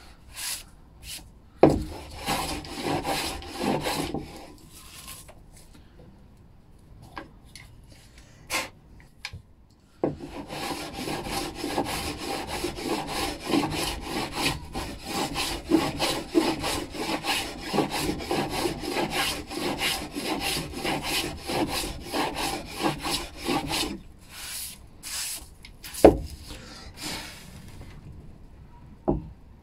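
An old metal hand plane shearing shavings off a pine board in quick, short rasping strokes. A brief run of strokes early on, then scattered ones, then a dense steady run of rapid strokes for about a quarter of a minute. A sharp knock comes near the end.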